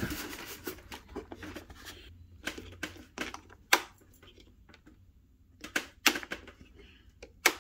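A series of sharp clicks, some in quick pairs: Blue Point manual switch machines being thrown from beneath, snapping the points of an HO scale Walthers code 83 double crossover across against the turnout's own spring.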